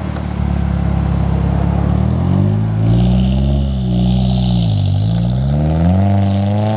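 A Nissan S13 Silvia's engine revving hard as the car pulls away, its pitch climbing, dipping once about five seconds in, then climbing again. A high hiss rises over it for a couple of seconds in the middle.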